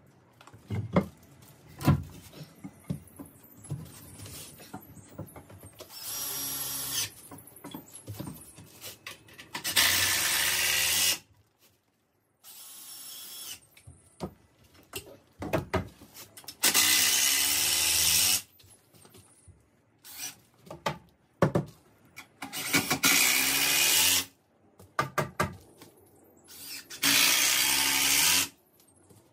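Cordless drill driving screws into the softwood timbers of a door lining, in five bursts of one to two seconds each, with knocks and clicks of the timber being handled between them.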